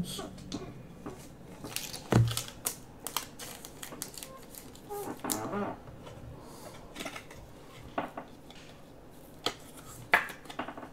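Scattered light clicks and taps of hands working at a desk, irregular, with a louder knock about two seconds in.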